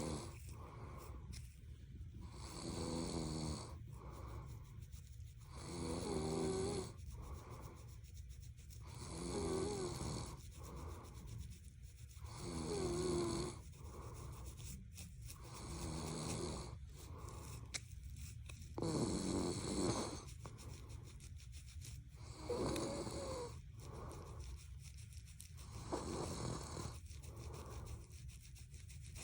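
A person snoring in a slow, even rhythm, about one snore every three seconds.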